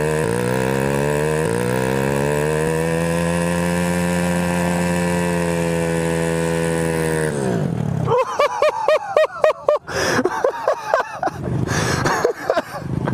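Small minibike engine running steadily at raised revs, then cutting out about seven and a half seconds in, its pitch falling away as it dies. After that, minibike engines are blipped in quick short revs, each rising and falling, several a second.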